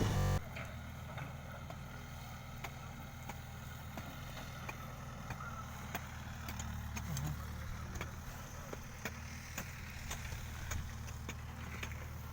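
Backhoe loader's diesel engine running steadily and faintly as a low drone, with scattered small clicks. A louder burst of the machine cuts off suddenly under half a second in.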